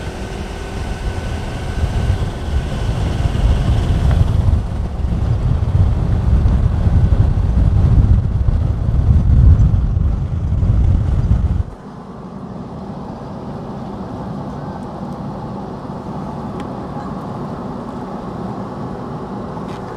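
Deep, gusting rumble of wind and road noise while riding in the open back of a moving pickup truck. About twelve seconds in it drops abruptly to a quieter, steadier rumble.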